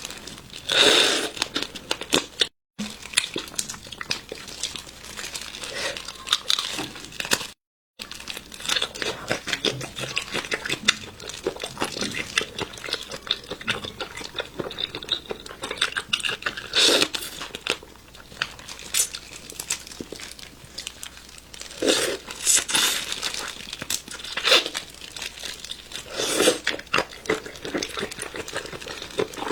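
Raw prawns being peeled by hand: a steady run of shell crackling and crinkling, with louder cracks now and then as shells are torn off.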